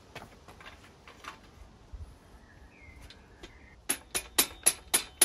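A mallet tapping on the quill stem and headset in a steel bicycle head tube: a fast run of sharp knocks with a metallic ring, about four a second, starting about four seconds in. Before it, only a few faint clicks of handling the parts.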